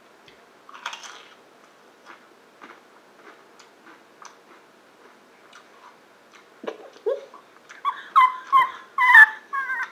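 A Pringles potato chip snapped in two about a second in, then faint crunching as it is chewed. From about eight seconds, a loud run of short, high-pitched squeaky cries that rise and fall in pitch.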